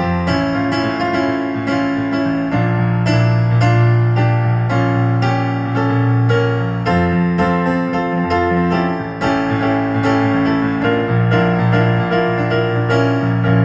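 Instrumental piano passage of a song with no singing: struck notes over held low chords.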